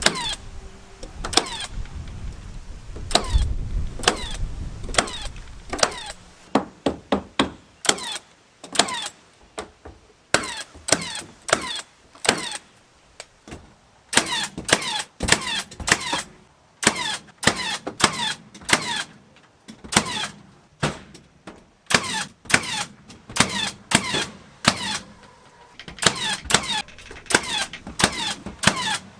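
Carpentry work on a wooden chicken coop: a long run of sharp knocks at irregular intervals, roughly one or two a second, as boards are nailed or fastened.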